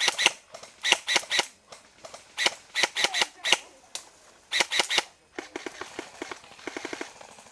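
Airsoft guns firing in the woods: about fifteen sharp cracks in short irregular strings over roughly five seconds, followed by a quieter run of fast, light ticks.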